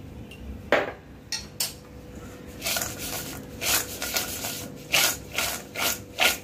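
Fried peanuts and crisp fried potato straws being tossed by hand in a stainless steel bowl, rattling and rustling against the steel with each shake, about two shakes a second through the second half. A sharp knock sounds about a second in, before the shaking starts.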